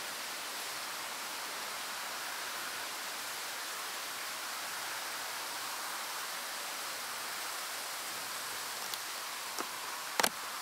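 Steady, even hiss of outdoor background noise, with a sharp double click near the end.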